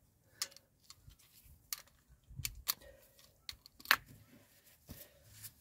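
Handling noise: irregular light clicks and knocks as the camera is moved and set down, the loudest about four seconds in.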